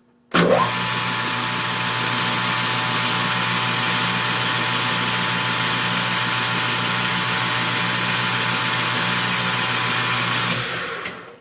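Metal lathe motor starting up with a quick rising whine, then running steadily at speed while a parting-off blade cuts a small bushing from the spinning stock, and spinning down near the end.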